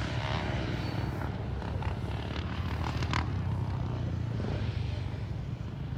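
Quad (ATV) engine running at a fairly steady speed, a low droning hum with no clear revving.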